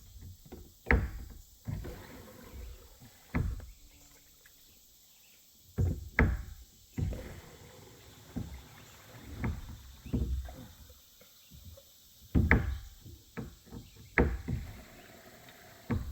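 Irregular low thumps and knocks of handling, with several sharper knocks spread through.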